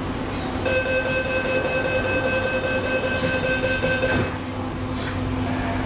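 Door-closing warning tone inside an MTR IKK-Train (SP1900) carriage as the saloon doors shut: one steady high tone starting about a second in and stopping about four seconds in, over the train's steady low hum.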